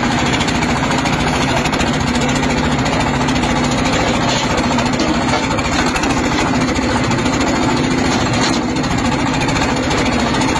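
Mini wheel loader's engine running steadily with a rapid knocking beat as the loader drives along.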